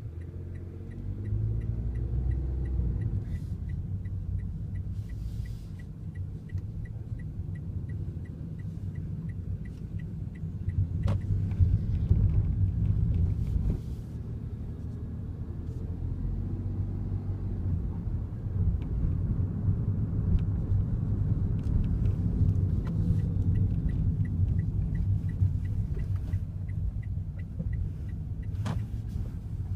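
Cabin noise of a Daihatsu Wake on the move: steady low road and engine rumble. An even run of ticks comes early on and again later, and a few sharp clicks stand out, the kind of abnormal noise traced to the driver's seat belt area.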